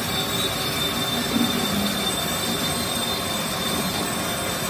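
Large engine lathe running, turning a truck axle end against the cutting tool: a steady, even machining noise with a thin high whine.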